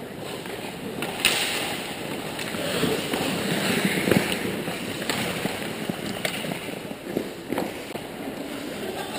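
Ice hockey skates scraping on the rink ice, with sharp clacks of sticks and puck; the loudest clack comes about a second in. The scraping grows louder around three to four seconds in.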